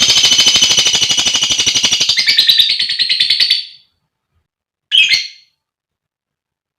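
Female lovebird giving a long, shrill, rapid chattering trill that stops about three and a half seconds in, followed by one short chirp.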